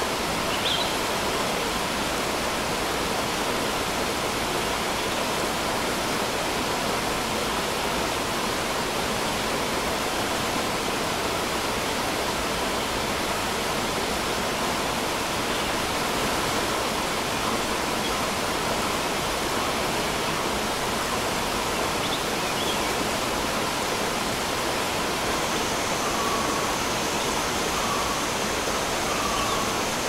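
A forest river stream rushing steadily over rocks, with a few short bird calls, including a run of calls near the end. A thin, high, steady insect drone, typical of cicadas, joins in near the end.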